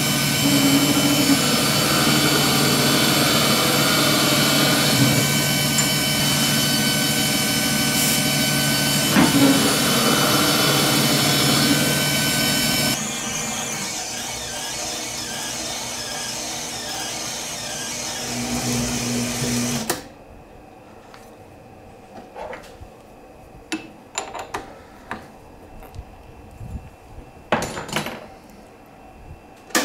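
Metal lathe running with a steady whine while an end mill and then a twist drill in the tailstock chuck cut into spinning 6061 aluminium. The running drops quieter about 13 seconds in and stops abruptly about two-thirds of the way through, leaving scattered sharp clicks and knocks.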